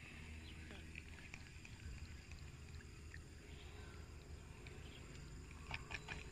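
Faint open-field ambience: scattered short high chirps over a steady low rumble, with a quick cluster of sharp clicks near the end.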